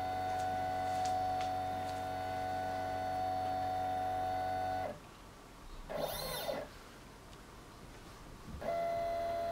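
Stepper motors of a Zen Toolworks 7x12 CNC machine, driven by a TinyG controller, whining steadily with a high tone during a slow 35 mm/min feed move. The whine stops about five seconds in, then a short whine rising and falling in pitch as the axis moves quickly back to zero, and the steady slow-feed whine starts again near the end.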